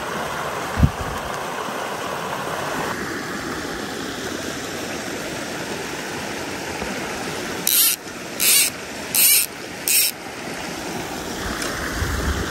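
Small creek running over shallow rocky riffles: a steady rush of water. About a second in there is a single low thump, and about two-thirds through come four short, high, hissing zips in quick succession.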